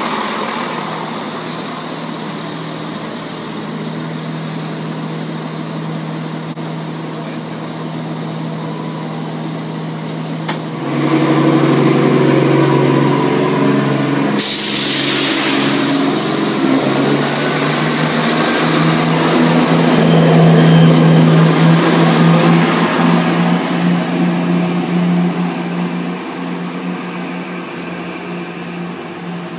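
ScotRail Class 170 Turbostar diesel multiple unit's engines idling at the platform, then powering up about a third of the way in as the train departs. A loud hiss of air comes about halfway, the engine note climbs a little, and the sound fades near the end as the train draws away.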